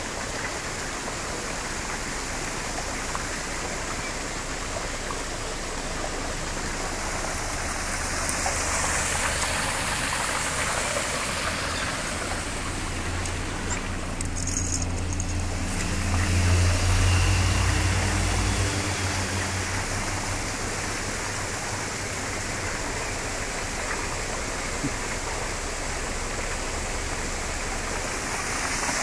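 Steady rushing of a stream, with a low rumble swelling for a few seconds about halfway through.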